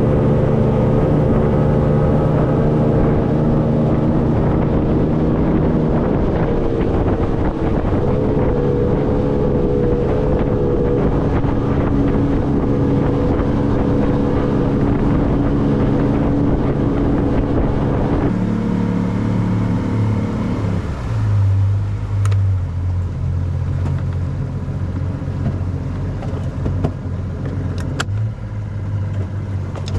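Boat engine running steadily under way, its pitch wavering slightly. About eighteen seconds in, the sound changes abruptly to a lower, different engine hum.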